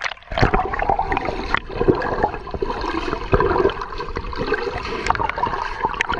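Underwater sound of shallow seawater moving around a camera held below the surface: steady water noise with many small clicks and knocks.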